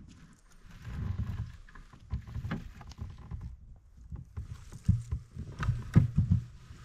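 Irregular knocks, clicks and rustling over a low rumble, like handling noise and movement through forest undergrowth, with the sharpest knocks about five and six seconds in.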